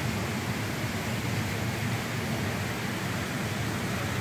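Steady, even background hiss and hum of a large store interior, with no distinct sounds standing out.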